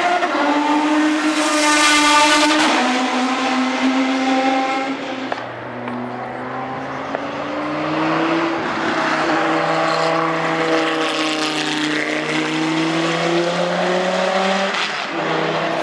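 A Maserati MC12 GT1 race car's V12 passes at speed, its note brightest about two seconds in and dropping in pitch as it goes by. After that comes the deeper note of a Chrysler Viper GTS-R's V10, its pitch climbing slowly as it accelerates out of a corner.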